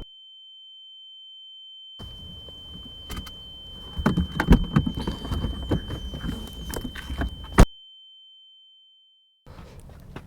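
A steady high-pitched ringing tone, a ringing-ears sound effect after a crash. From about two seconds in, rustling and knocking run under it, with a sharp click about three quarters of the way through. The tone cuts off near the end as more rustling starts.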